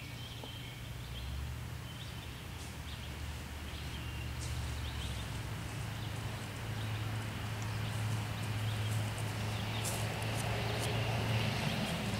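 Outdoor ambience with a steady low rumble and hiss, and footsteps through grass that grow louder and more frequent in the second half as someone walks up.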